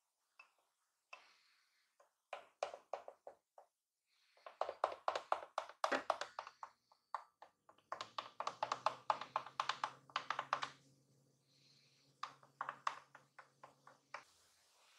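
Wooden stirrer tapping and scraping against the inside of a glass while stirring whipped dalgona coffee foam into milk. The taps come in quick runs of several a second, with short pauses between runs.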